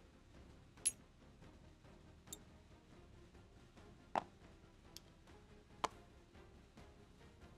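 Five sharp, isolated clicks spread unevenly over several seconds against a faint background.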